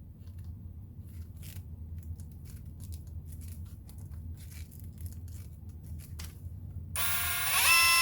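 Scattered faint clicks from handling the tool. About seven seconds in, the TMG cordless impact wrench's motor spins up free-running in forward, with no hammering: a loud whine that rises in pitch, then holds.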